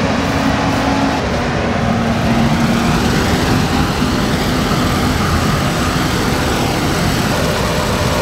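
John Deere S690 combine with its corn head running as it moves along the edge of standing corn. The engine and harvesting machinery make a loud, steady drone, with an engine tone that drops slightly about a second in.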